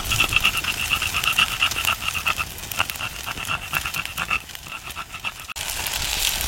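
A rapid, pulsed animal call in two runs, the second shorter, over the crackle of a campfire.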